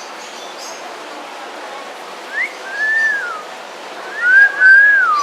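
A talking bird whistling: a short rising note, then an arched whistle that falls away, then two louder arched whistles near the end, the last sliding down.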